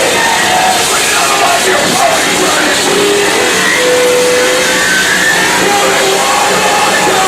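Harsh noise music: a loud, unbroken wall of distorted noise, with short wavering and gliding tones over it.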